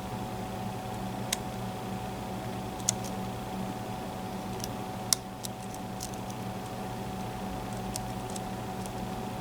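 Scattered small metal clicks of a lock pick working pins inside a Mul-T-Lock MT5+ cylinder, a few louder ticks among fainter ones, over a steady low hum.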